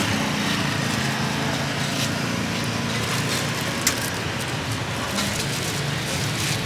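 A motor running steadily, with one sharp click about four seconds in.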